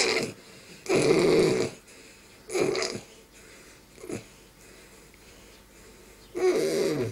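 A person's wordless vocal noises in four short bursts, each sliding down in pitch. The last and longest comes near the end.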